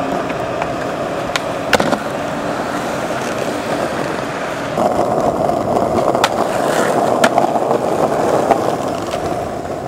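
Skateboard wheels rolling on pavement, a steady rolling rumble that grows a little louder about halfway through, with a few sharp clacks.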